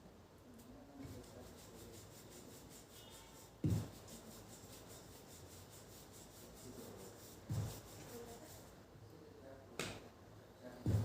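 Household handling noises: soft rubbing and shuffling with four dull thumps, the first about four seconds in and the last two close together near the end.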